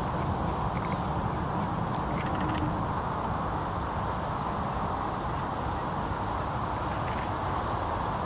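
Steady low outdoor background rumble, with a few faint ticks about two seconds in.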